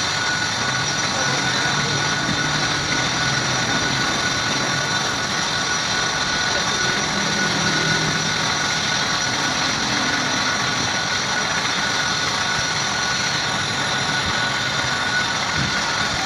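A machine running steadily with a constant high whine and even noise throughout.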